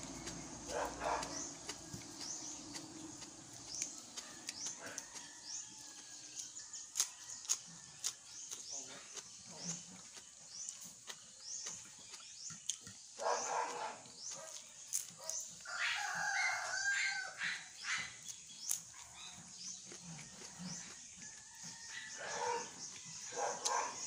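Close-up chewing and lip-smacking of a man eating raw leafy greens and rice: many small wet clicks and crunches. A few short animal calls sound in the background, the clearest at about thirteen and seventeen seconds in.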